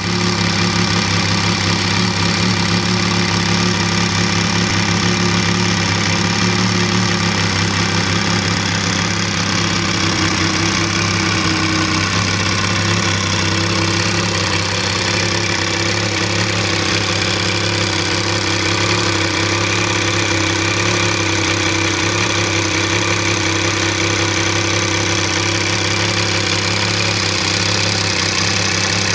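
Horex VR6 motorcycle's 1200 cc VR6 engine idling steadily.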